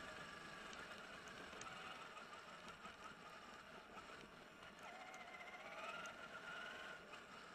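Traxxas E-Maxx RC monster truck's electric drive whining faintly, its pitch rising and falling with the throttle and climbing about five to six seconds in, with a few faint ticks.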